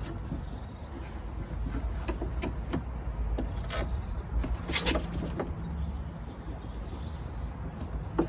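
Scattered small clicks and knocks of a car door lock and its screws being handled and fitted inside the door, over a low steady rumble, with two louder knocks near the middle.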